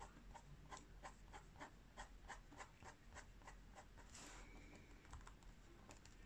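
Coloured pencil scratching on paper in quick, short shading strokes, about four a second, fainter after about three and a half seconds.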